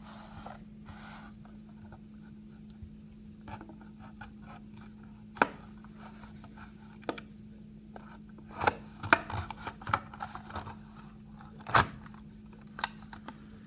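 Hot Wheels die-cast car being unboxed from its blister-card packaging by hand: scattered clicks, scrapes and rubbing of plastic and cardboard, busiest in the second half, with a sharp snap near the end. A steady low hum sits underneath.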